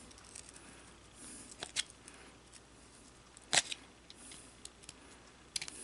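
Faint scraping and a few small metal clicks as a tool works at a screw on a P1853 Enfield rifle lock, its slot packed with old grease and crud; one sharper click comes about three and a half seconds in.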